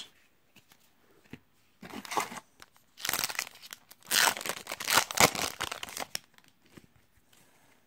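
Foil wrapper of a Yu-Gi-Oh! booster pack being torn open and crinkled by hand. There is a short rustle about two seconds in, then a longer, louder stretch of crinkling and tearing lasting about three seconds.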